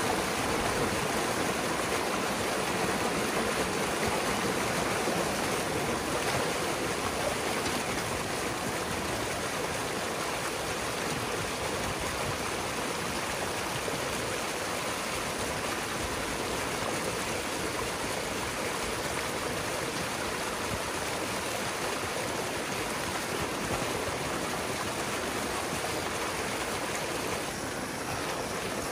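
Pond water rushing through a breach in a beaver dam, a steady foaming cascade over sticks and mud as the flooded beaver pond drains.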